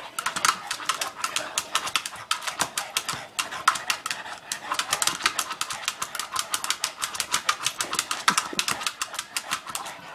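Boston terrier's claws rapidly clicking and scratching against a plastic ball as it paws at it, several quick taps a second with a couple of brief pauses.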